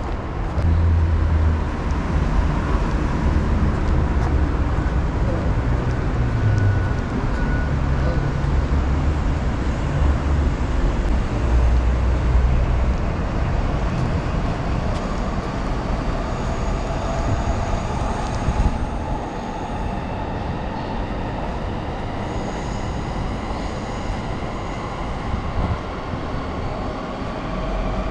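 A train passing, with a heavy low rumble for roughly the first half. From around the middle on the rumble eases and several steady high tones sound over it.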